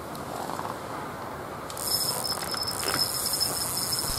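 A fishing reel's spool spinning on free-spool as a hooked carp runs and pulls line off, giving a steady high buzzing whine that starts about halfway through.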